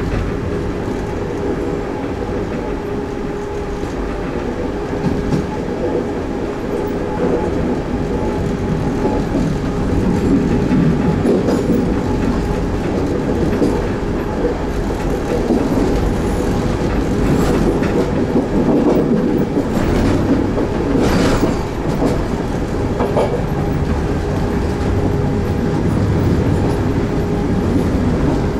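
Train rolling through a station, heard from on board: a steady rumble and hum of the running train, with the wheels clicking over rail joints and points, most clearly around twenty seconds in.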